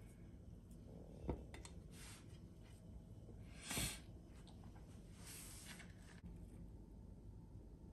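Quiet handling of raw pork-belly-wrapped cherry tomatoes being threaded onto bamboo skewers in an enamel tray: a light tap a little over a second in, then brief soft squishy rustles around four seconds and again around five and a half seconds.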